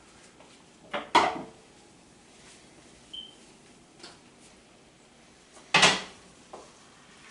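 A spoon knocking against a cooking pot during stirring: two loud clanks, about a second in and again just before six seconds, with a few light taps between.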